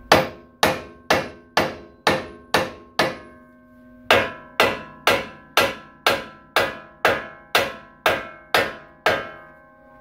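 Small sledgehammer striking the steel steering knuckle of a 2006–10 Ford Explorer's front suspension, about two blows a second, each with a metallic ring. There is a short pause just after three seconds in, then the blows resume. The hammering is to shock the upper control arm's ball joint loose from the knuckle.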